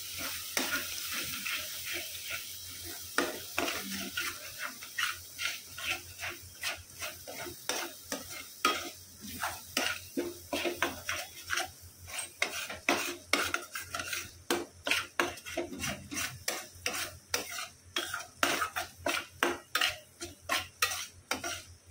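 Wooden spatula stirring and scraping thick masala paste around a kadai in quick repeated strokes, over a faint sizzle of the masala frying in its separated oil; the sizzle thins after the first few seconds.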